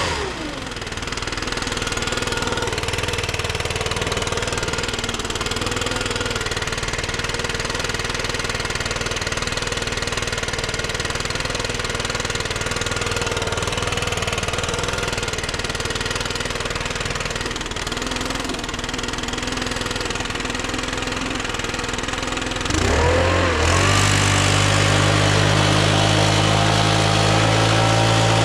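Snowblower engine running steadily. It drops in pitch and quietens at the start, then about 23 seconds in it rises in pitch and runs louder again.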